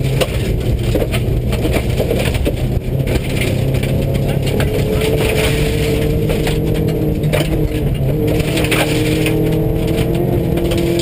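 Subaru rally car's flat-four engine pulling hard on a gravel stage, heard from inside the cabin, its pitch climbing slowly over the second half. Gravel crunches under the tyres, and stones crack and ping against the underbody throughout.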